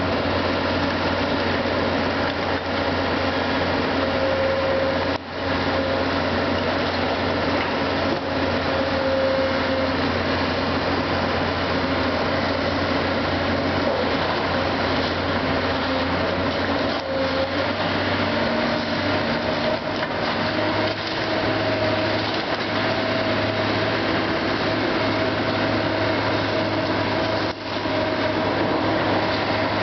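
Hydraulic excavator's diesel engine running steadily as it works at demolition, its note stepping up slightly partway through.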